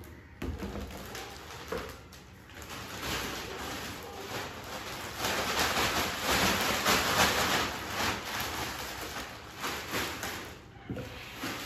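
Plastic packaging bag rustling and crinkling as it is pulled off a plastic tub and handled, loudest in the middle stretch.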